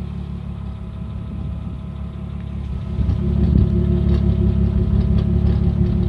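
Audi A6 C4's 2.6-litre V6 (ABC) engine idling, with a quiet, intermittent ticking knock whose source the owner cannot locate. The engine sound gets louder about three seconds in.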